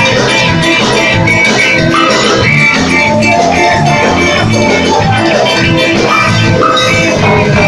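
A band playing rock music: guitars over a drum kit with a steady beat.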